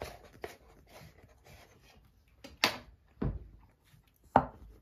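A few sudden knocks on a wooden cutting board as a chiffon cake is worked off the base of its tube pan: a sharp knock, a dull thud, then a louder sharp knock in the second half, with faint handling sounds before them.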